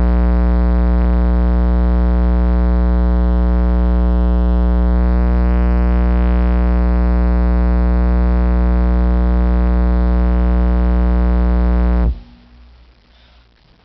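Digital Design 9515 subwoofer wired directly to a wall socket, its cone driven by mains current into a loud, steady, distorted hum with many overtones; the other voice coil is already blown. The hum cuts off suddenly about twelve seconds in.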